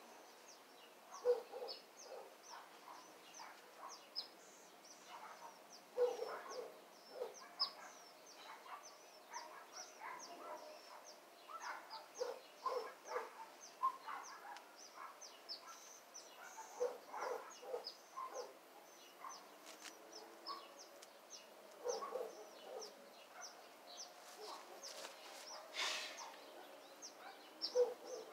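Birds chirping, faint: a steady scatter of short, high notes, with lower, shorter calls and a few sharp clicks between them.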